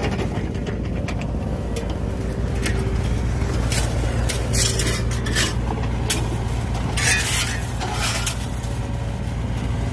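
Backhoe engine running steadily, with repeated metallic clanks and scrapes over it.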